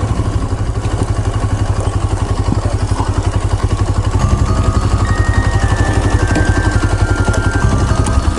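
Motorcycle engine running with a fast, even low pulse as the bike slows and stops, then cut off abruptly at the very end. Background music comes in about halfway through.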